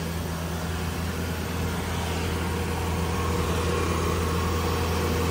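Kubota DC70 Plus combine harvester's diesel engine idling steadily, growing slightly louder about halfway through.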